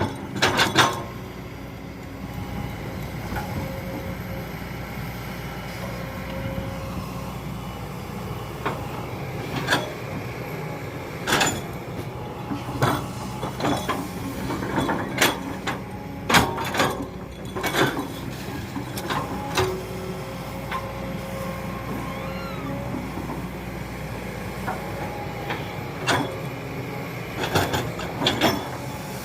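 Diesel excavator engine running steadily, with sharp metallic clanks and knocks every few seconds from the machine at work. The knocks come in clusters, mostly in the middle and near the end.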